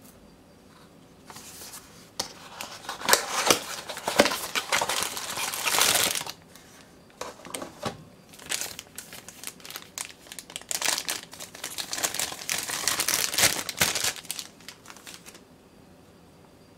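Clear plastic packaging bag crinkling and rustling as it is handled and opened to free a silicone egg mold, in two long stretches with a short break about six seconds in. It stops about a second before the end.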